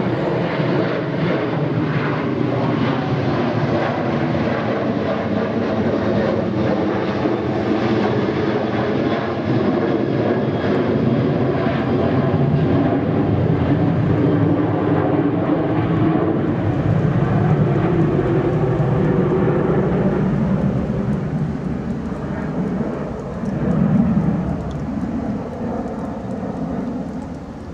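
Boeing 737-800's twin CFM56-7B turbofan engines at climb power just after takeoff: a loud, steady jet roar that fades over the last few seconds as the aircraft climbs away.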